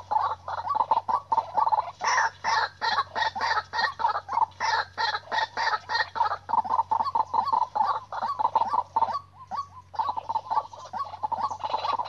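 White-breasted waterhen (ruak-ruak) calling as a trapping lure: a rapid, unbroken run of harsh clucking notes, about five a second, with a short break a little past halfway through.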